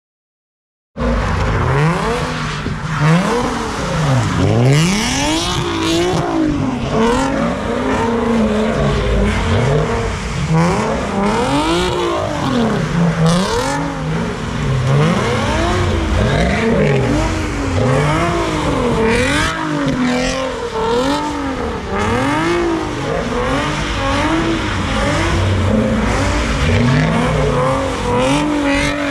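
Car engine revving hard again and again while its tyres spin and squeal, the engine pitch rising and falling every second or two, starting about a second in.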